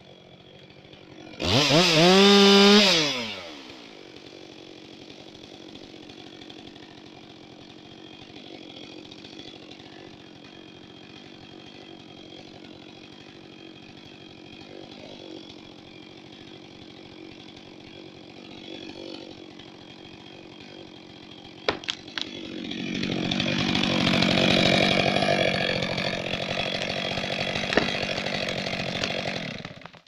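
Chainsaw revved hard once about two seconds in, its pitch rising and falling, then idling steadily. A few sharp clicks come near the end, then the saw runs at high revs for about seven seconds and stops abruptly.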